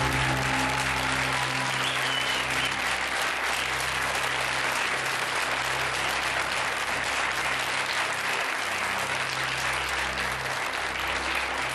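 Studio audience applauding over the game show's background music, a low sustained tone under dense clapping.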